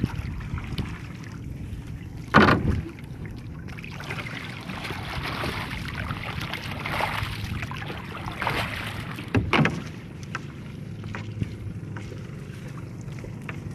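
Water splashing and lapping around a small wooden outrigger boat as a paddle works the water, with two sharp knocks, about two and a half and nine and a half seconds in.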